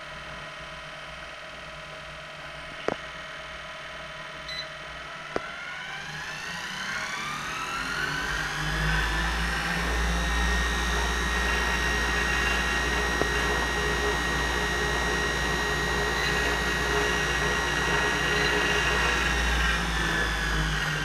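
Actuell KP-4000P treadmill's DC drive motor, run by its control board, speeding up with a rising whine over a few seconds, then running steadily at speed with a low rumble and easing off a little near the end. A few sharp clicks come before it starts.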